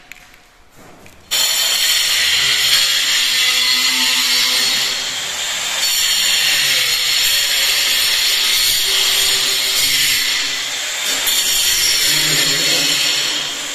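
Steady, loud machine noise with a strong hiss, starting abruptly about a second in and running on without a break.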